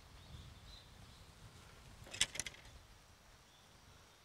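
A quick run of a few sharp clicks about two seconds in, over a faint low rumble and quiet outdoor background.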